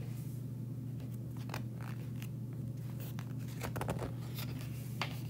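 Faint scattered rustles and clicks of handling noise over a steady low hum.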